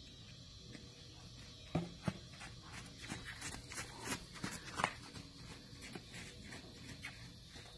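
A horse's hooves on soft, wet arena dirt as it moves close past, a run of dull thuds and clicks, loudest between about two and five seconds in.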